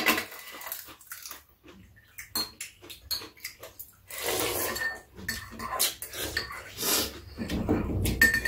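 People eating a meal: spoons and chopsticks click against ceramic bowls, with slurping and chewing noises in between.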